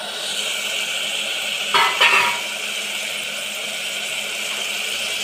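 Chopped beans and carrots sizzling in hot oil and masala in an aluminium pressure cooker, a steady hiss, with a brief clatter about two seconds in.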